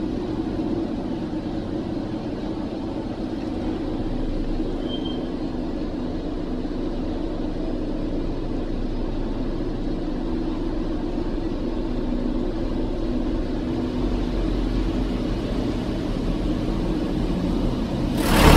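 Automatic car wash running, heard from inside the car's cabin: a steady rushing of water spray over a low machinery hum. A much louder rush starts suddenly near the end.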